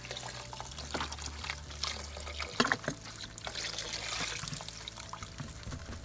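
Beef stock pouring from a carton in a trickling stream into a pot of hot stew, with a couple of sharp knocks a little under halfway through.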